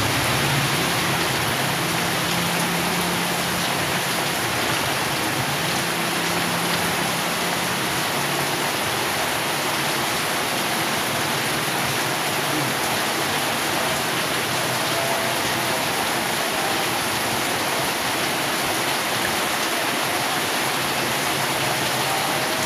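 Heavy rain pouring down, a steady, even downpour that holds at the same loudness throughout.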